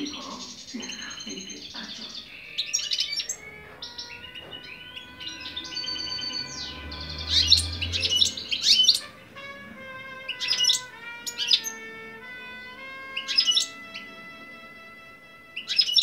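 European goldfinches chirping and twittering in short bursts of quick notes, repeated several times.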